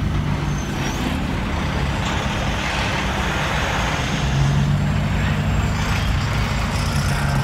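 Steady road noise inside a moving car, tyres and engine, while a semi-truck runs alongside. A low droning hum swells about halfway through.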